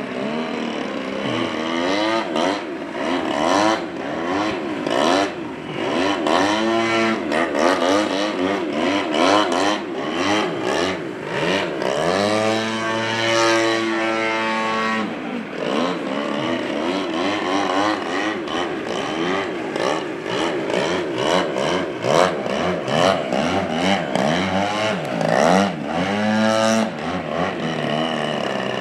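Engine of a large radio-controlled aerobatic plane, an Extreme Flight Extra NG 91" with a GP 76 engine, running in flight. Its pitch keeps rising and falling as it manoeuvres, with one long steady drop in pitch about halfway through.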